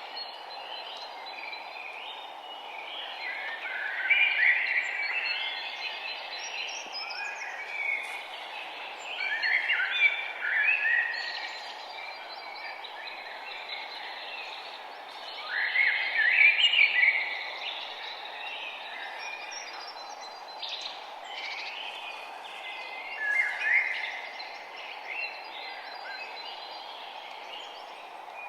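Songbirds singing in short chirping phrases every few seconds, with several of them louder and busier, over a steady background hiss.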